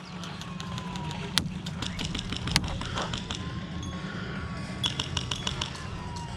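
Scattered airsoft gunfire across the field: sharp single cracks, the loudest about a second and a half in and again near two and a half seconds, then a quick cluster of shots around five seconds, over a steady low rumble.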